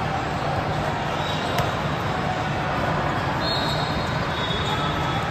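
Basketball game noise in a gym: a steady din of crowd and court, with a few brief high squeaks of sneakers on the hardwood.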